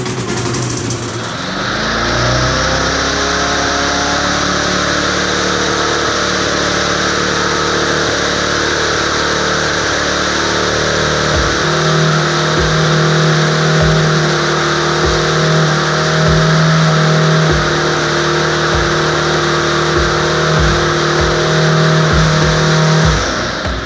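Push mower's small engine starting and revving up over the first couple of seconds, then running steadily at too high an RPM. Uneven low pulses come in about halfway through, and the engine cuts off near the end.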